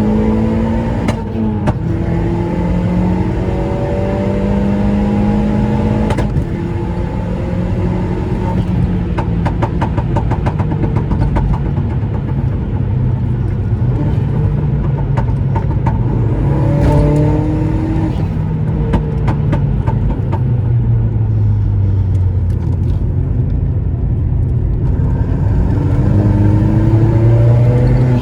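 Seat Leon 1.8T's turbocharged four-cylinder engine pulling hard, its note rising and dropping several times as it revs through the gears. Rapid fluttering chatter of turbo flutter comes in twice, around the throttle lift-offs.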